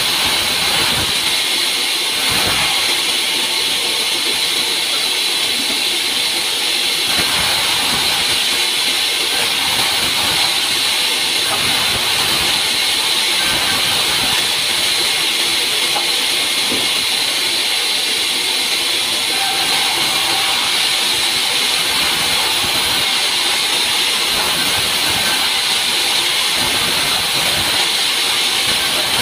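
Large sawmill band saw running and cutting log slabs into small beams: a steady, loud, high-pitched sawing noise that holds constant without pause.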